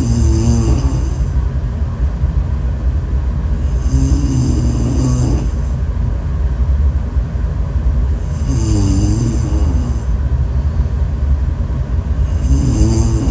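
A person snoring loudly: four snores about four seconds apart, each a wavering pitched snore with a hissy edge, over a steady low rumble.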